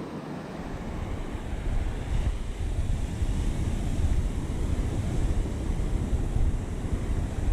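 Ocean surf washing on the beach, with wind buffeting the microphone. The low wind rumble picks up about a second and a half in.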